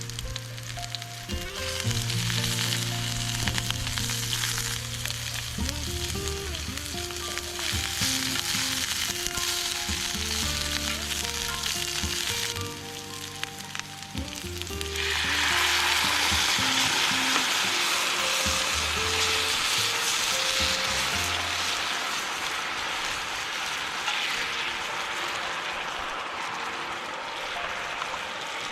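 Food frying and sizzling in a pan, with some stirring; the sizzle jumps louder about halfway through. Gentle background music plays under it for the first two-thirds, then fades away.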